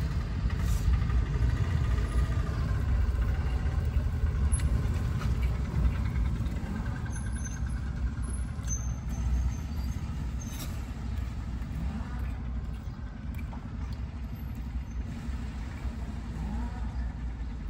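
Steady low rumble of vehicle engines and traffic.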